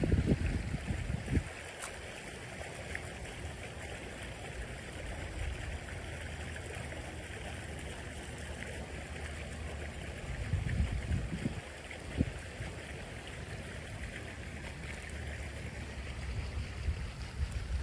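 Steady rushing noise like running water, with short low rumbles near the start and again about ten seconds in.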